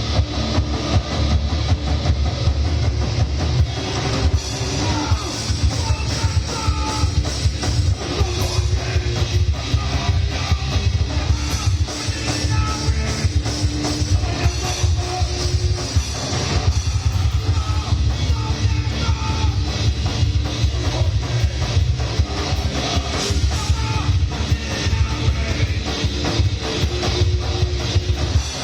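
A rock band playing live: distorted electric guitars, bass and a drum kit, loud and continuous.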